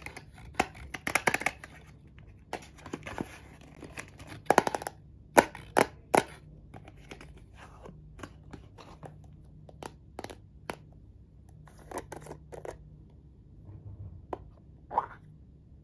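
Close handling of a cardboard box and a white plastic jar of clay mask: scattered sharp taps, clicks and short scrapes of cardboard and plastic as the jar is slid out of the box and its lid taken off. The sharpest click comes a little past five seconds in.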